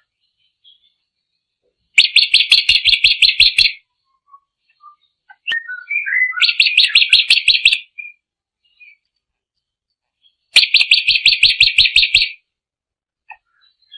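A drongo singing: three loud bursts of fast, evenly repeated notes, each lasting about two seconds and coming roughly every four seconds, with a few softer chirps and whistles between them.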